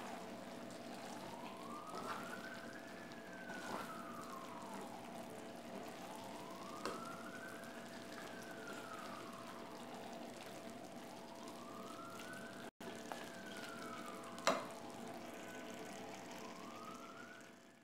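A siren wails, its pitch rising and falling smoothly about every five seconds, over the faint sizzle of chicken cooking in a pan. A few light clicks come through, the sharpest about fourteen seconds in.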